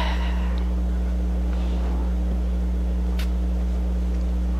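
Steady low hum with no speech, with a faint breath about a second and a half in and a short click about three seconds in.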